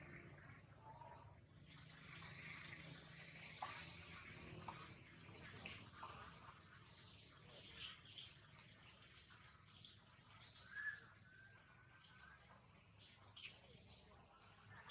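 Faint bird chirping: short high chirps repeating about once a second, coming more often in the second half.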